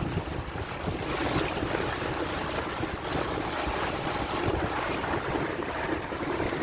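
Wind on the microphone and water rushing along a sailboat's hull as it sails at about 7 knots. It is a steady rushing noise that gets a little fuller about a second in.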